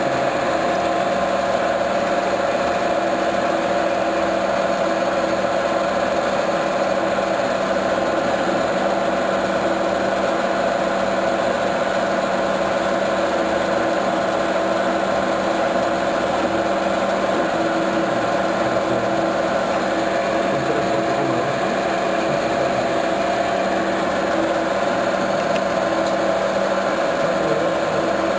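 Metal lathe running at a steady pitch with several tones held constant, its grooving tool cutting a thread relief groove into the spinning metal bar.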